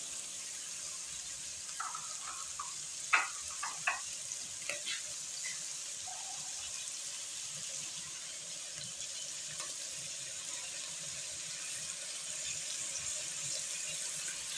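Browned meat sizzling gently in oil in a pressure-cooker pan on a gas stove, with a pot boiling and bubbling beside it: a low steady hiss. A few light clicks of utensils come in the first few seconds.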